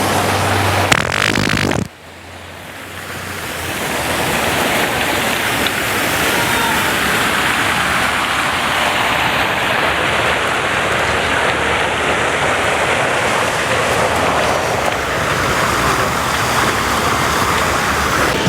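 A steady rushing noise that fades in over about two seconds after a sudden drop about two seconds in; before the drop, a low steady hum under the noise.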